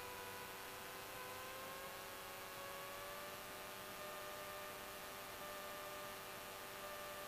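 Faint steady hum of a Cessna 172's engine and propeller in cruise, its pitch rising slightly about a second in and then holding.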